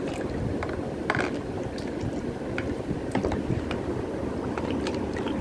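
Small homemade water wheel, a plastic plate spinning on a pen axle, clicking and rattling irregularly, over a steady low rushing noise.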